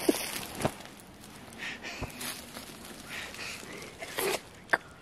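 Footsteps through dry fallen leaves on the forest floor: irregular rustling with a few sharp clicks.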